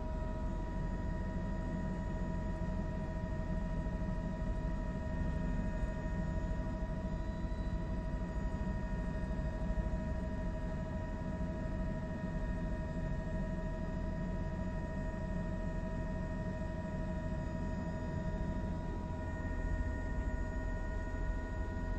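Steady drone of a news helicopter: a low rumble with a few steady whining tones over it, unchanging throughout.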